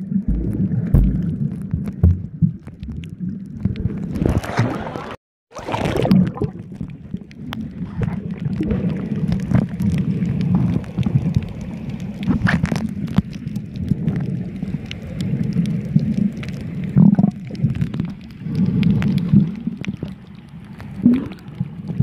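Muffled sea water heard by a submerged camera: a steady low rumble with gurgling and bubbling, broken by a short dropout about five seconds in.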